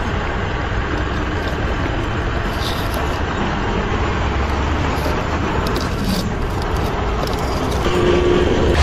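Steady truck engine running, with a continuous low rumble. A short steady tone joins near the end.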